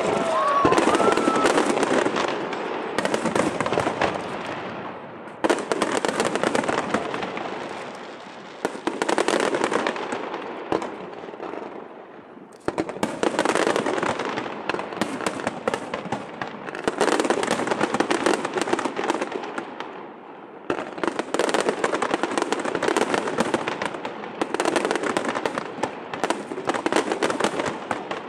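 Aerial fireworks crackling in dense surges, each starting sharply and fading over several seconds before the next volley.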